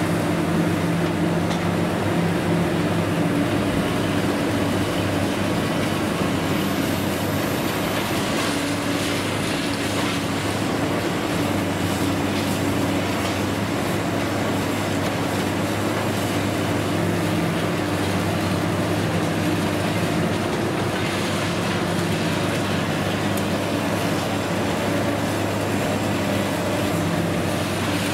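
Long-reach demolition excavator's diesel engine running steadily with a low hum, over the crunching of reinforced concrete and falling rubble as the building is pulled down.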